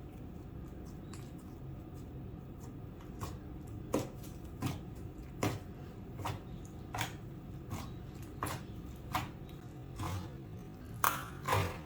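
Slime being squished and worked by hand. From about four seconds in there is a sticky pop or click roughly every three-quarters of a second, loudest near the end.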